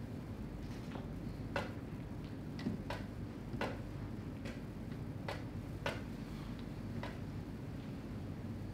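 Irregular sharp clicks and taps of chess pieces being set down and chess clock buttons being pressed at blitz pace, about ten over seven seconds, over a steady low room hum.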